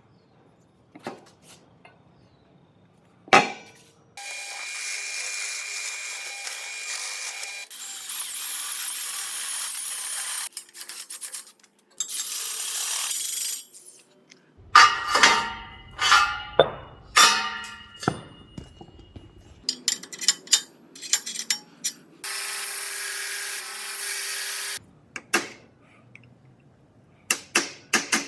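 Metalworking power tools running in short stretches of a few seconds each, broken by sharp metallic knocks and clanks from hand work on steel parts.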